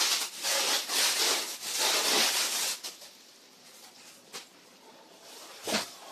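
Plastic packing wrap rustling and crinkling in quick bursts as it is pulled out of a cardboard box, for about three seconds; then it goes quiet apart from a light tap and, near the end, a sharper knock.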